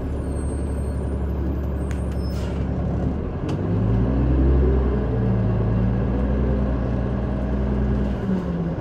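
City bus engine running under way, heard from aboard the bus. About three and a half seconds in its pitch rises as the bus accelerates, holds steady, then drops and climbs again near the end as the automatic transmission shifts gear.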